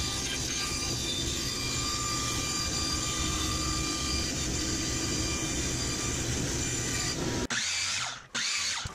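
Band saw running steadily while cutting a curve in a plywood panel. About seven and a half seconds in it cuts off, and a miter saw starts up with a rising whine and cuts a board.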